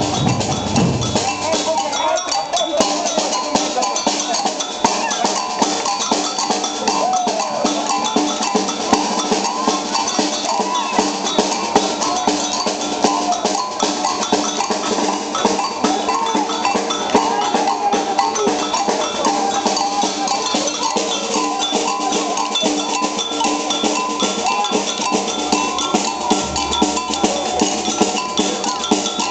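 Samba batucada percussion band playing a steady, dense groove on surdo drums, metal shakers and other hand percussion, with a clanking bell pattern on top.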